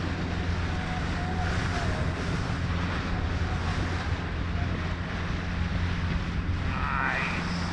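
Boat motor running steadily at trolling speed, a constant low hum with wind and water noise.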